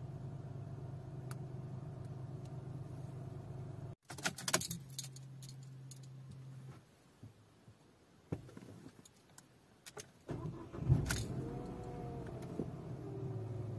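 Dacia Logan's engine idling, then switched off with a sudden cut about four seconds in, followed by the rattle and clicks of the ignition key. After a quieter stretch with a few clicks, the engine is cranked and starts near the end, flaring briefly before settling back to a steady idle.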